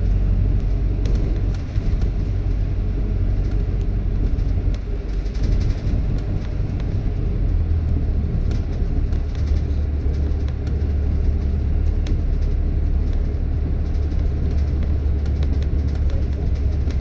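Engine and road rumble of a London bus heard from inside the passenger cabin while riding. The low drone settles into a steadier hum about halfway through, with scattered light clicks and rattles.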